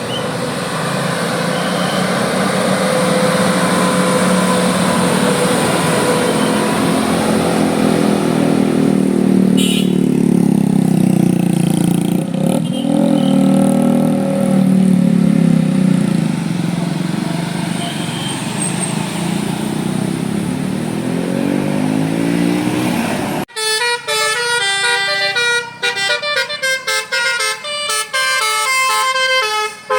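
Large bus passing close by, its engine and road noise rising and fading, with a horn sounding. About 23 seconds in the road noise cuts off abruptly and a multi-tone telolet 'basuri' bus horn plays a quick tune of short stepping notes.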